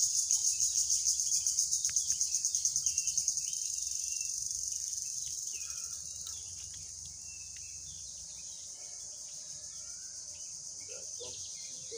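Insects shrilling in a high, continuous chorus that pulses rapidly, several times a second, for the first three seconds or so, then carries on steadier and gradually fainter.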